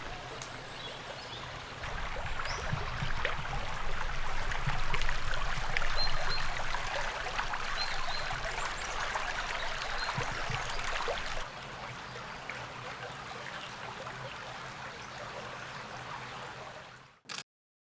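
Small woodland stream flowing in a steady trickle. It drops abruptly to a quieter level about two-thirds of the way through, then fades out near the end.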